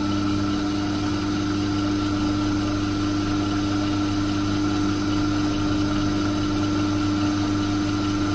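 Myford lathe running steadily under its electric motor, a constant hum and whine from the motor and drive as the chuck spins.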